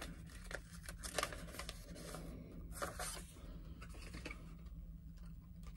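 Plastic toy packaging being handled and torn: irregular crinkling with scattered sharp clicks, busier for the first three seconds or so, then thinning out to a few clicks.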